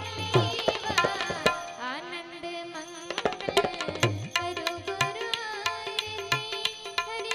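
Live devotional aarti music: tabla drumming with a melody line carried by the Indian banjo.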